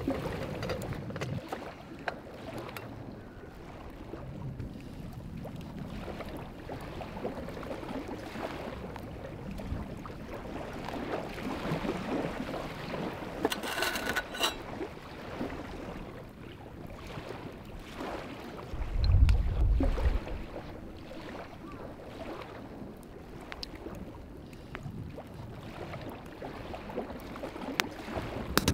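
Lakeshore ambience: wind and small waves lapping on the gravel shore, with a few light knocks. A gust of wind buffets the microphone about two-thirds through, the loudest moment.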